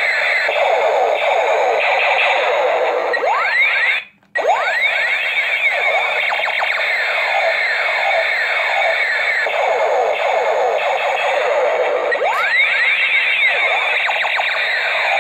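Electronic sound effects from a toy gun: rapid, overlapping falling tones, repeated over and over, with a few rising sweeps among them. They cut out briefly about four seconds in.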